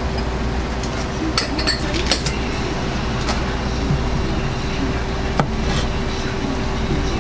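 A kitchen knife clicks and taps sharply against a cutting board a few times as tiger pufferfish is cut up, over a steady kitchen hum.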